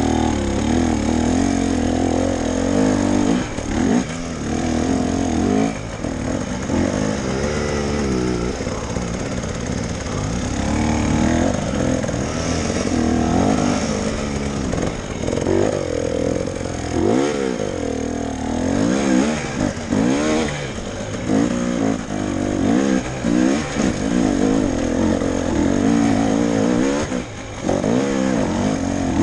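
KTM enduro motorcycle engine revving up and down without pause as it climbs a steep, rocky trail, its pitch rising and falling every second or so as the throttle is opened and shut.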